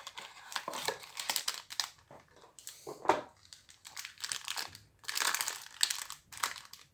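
Wrapper of a trading card pack being torn open and crinkled by hand, in irregular crackling bursts.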